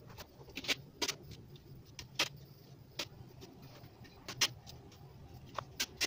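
About a dozen sharp, irregular clicks and light knocks from objects being handled on the concrete weight plate, the loudest about four and a half seconds in.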